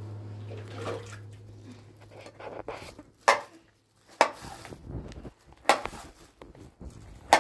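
Sharp knocks and clatters of objects being handled, four loud ones about a second or so apart, with softer rustling between; a steady low hum fades out near the start.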